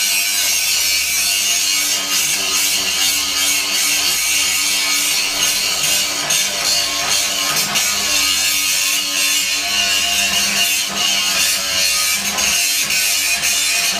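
Angle grinder grinding rust off a steel plate: a loud, steady, hissing grind with a constant motor whine underneath, running without a break.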